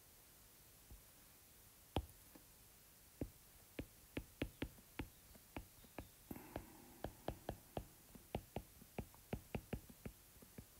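Stylus tip tapping and clicking faintly on a tablet's glass screen during handwriting: a string of short, light taps, about two to three a second, from about two seconds in.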